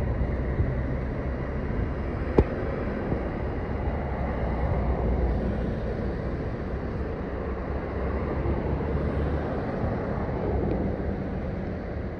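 Wood chip freight train running, a steady low rumble with a faint low engine drone, and one sharp knock about two and a half seconds in.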